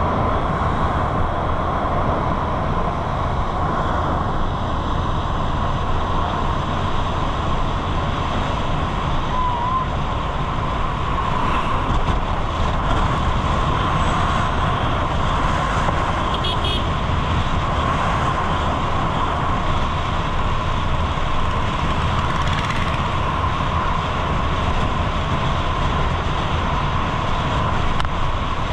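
Steady road rumble of a vehicle travelling along a highway, a continuous heavy low drone of engine and tyres.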